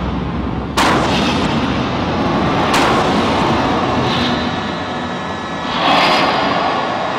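Repeated explosion blasts, each a sudden bang trailing into a long echoing rumble: one about a second in, another near three seconds, and a swelling blast near six seconds.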